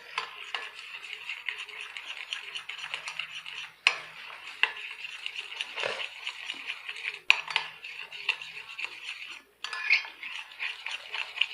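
A utensil stirring foam into glue in a bowl to make fluffy slime: a continuous scraping and clicking against the bowl, with a few sharper knocks. It stops briefly about nine and a half seconds in, then carries on.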